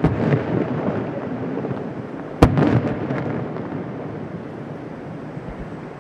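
Aerial firework shell bursting about 650 m away: one sharp boom about two and a half seconds in, followed by a long rolling echo. The rumble of an earlier burst is dying away at the start, and a few small pops come near the end.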